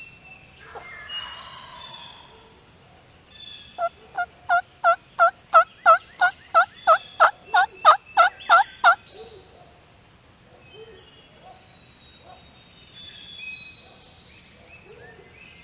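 A run of about fifteen loud turkey yelps, roughly three a second, starting about four seconds in and stopping about five seconds later.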